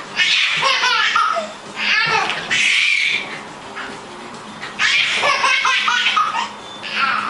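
A baby laughing hysterically in repeated fits of belly laughter, with a quieter pause of about a second and a half in the middle.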